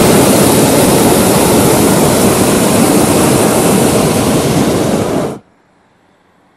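Hot-air balloon's propane burner firing in one long, loud, steady burn that cuts off abruptly about five seconds in.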